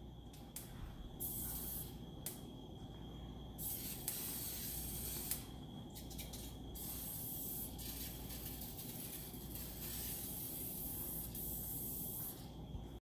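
Frying pan sizzling with hot coconut oil: a fizzing hiss that swells and drops back in uneven spells.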